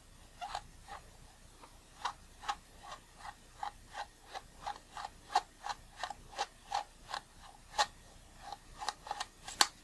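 Optical block of an Olympus E.Zuiko 100mm f/2.8 lens being unscrewed by hand, its threads and the fingers rasping against the metal barrel in short strokes, about two a second, one for each twist of the fingers. The loudest stroke comes near the end, as the block comes loose.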